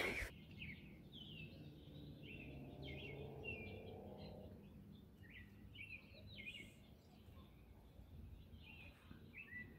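Birds chirping: many short, high chirps, some sweeping down in pitch, scattered all through, over a faint low background rumble.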